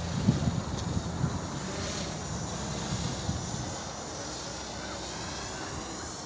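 GAUI 330X-S quadcopter's brushless motors and propellers whirring as it flies overhead, with a low gusty rumble that eases after the first two seconds.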